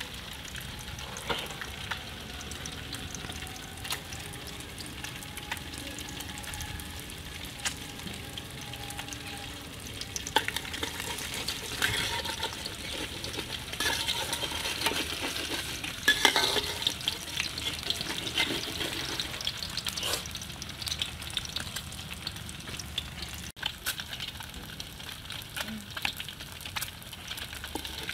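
Eggs frying in hot oil in a steel wok, a steady sizzle, with a metal spatula scraping and tapping against the pan; the spatula strokes are busiest and loudest in the middle stretch.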